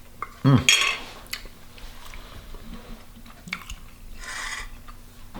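A man chewing and eating a mouthful of penne pasta, with a short voiced sound about half a second in and a breathy rush of air around four seconds in.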